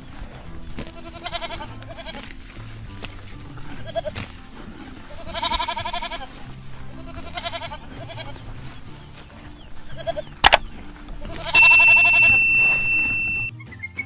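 Sheep or goat bleating several times in wavering calls, the longest a little past the middle and near the end, over steady background music.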